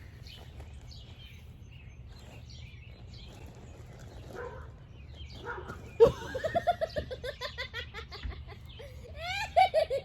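A person laughing hard in rapid, high-pitched 'ha-ha-ha' pulses, starting about six seconds in and breaking out again near the end.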